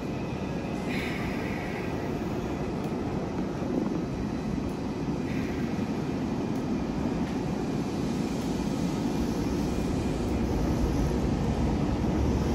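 Meitetsu 5000 series electric train at the platform, its running noise steady and then slowly growing louder as it pulls away. Two short, higher-pitched sounds come through, about a second in and about five seconds in.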